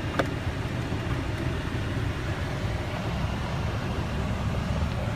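A single sharp click from the Fiat 500L's overhead dome-light switch about a quarter second in, over a steady low rumble inside the car's cabin.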